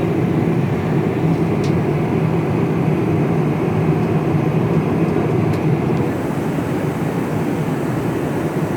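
Steady cabin noise inside an Airbus A350-900 in flight: the deep rumble of its Rolls-Royce Trent XWB engines and the airflow. It eases slightly about six seconds in, with a couple of faint ticks.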